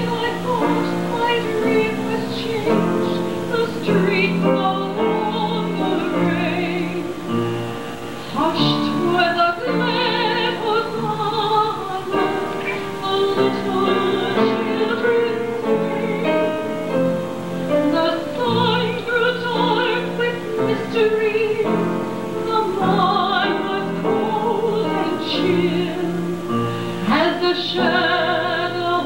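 A woman singing a solo into a handheld microphone, her voice held in long wavering notes with vibrato, over steady instrumental accompaniment.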